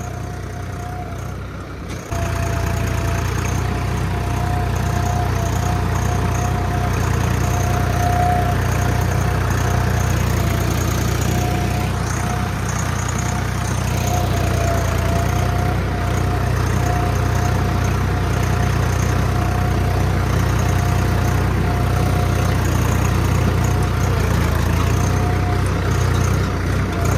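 Swaraj 855 4x4 tractor's three-cylinder diesel engine running steadily at about 1200 RPM while pulling an 11-tine cultivator, under light load, with a steady whine over the engine note. It gets louder about two seconds in.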